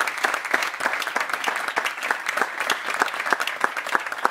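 Audience applauding, with the individual claps distinct.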